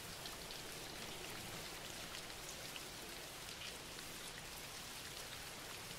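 Faint, steady rainfall with fine scattered droplet patter, laid under the narration as a background bed.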